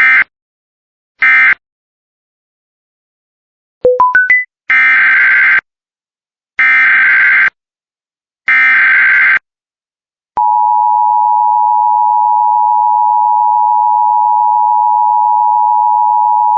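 Emergency Alert System data tones: two short screeching digital bursts, then four quick beeps stepping up in pitch. Three longer SAME header bursts follow about a second apart, and about ten seconds in the steady EAS two-tone attention signal begins and holds.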